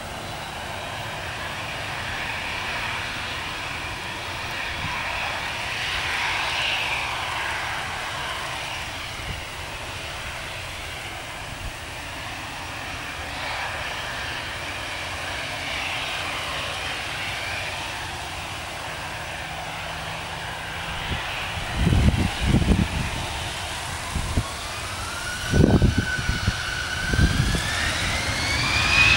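Airbus A320's two CFM56-5B turbofan engines whining steadily at low thrust, then spooling up with a rising whine in the last few seconds as takeoff power is set. Wind buffets the microphone with low thumps during the second half.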